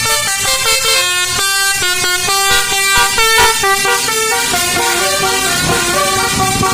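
A bus's Basuri musical air horn playing a 'telolet' tune: a quick run of loud pitched horn notes, several sounding together and changing pitch several times a second. A low rumble comes up under the horn near the end.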